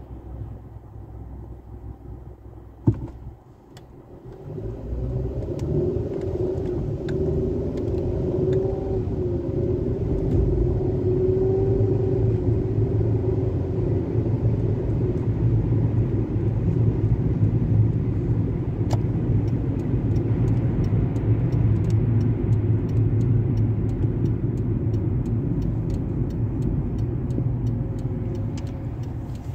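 Car engine and tyre rumble heard from inside the cabin: quiet at first, with a sharp click about three seconds in, then the car pulls away and the rumble grows louder and stays steady as it drives on.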